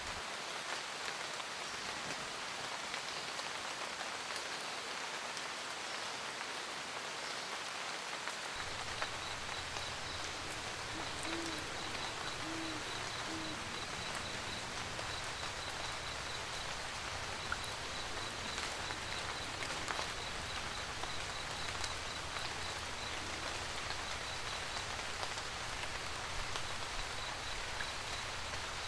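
Steady rain pattering on a roof, with an owl hooting three times about eleven to thirteen seconds in. A high, fast-pulsing chirp joins from about nine seconds in.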